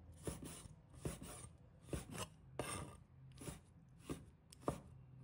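Cleaver chopping lemon slices into small pieces on a wooden cutting board: about eight faint, irregular chops, roughly one or two a second.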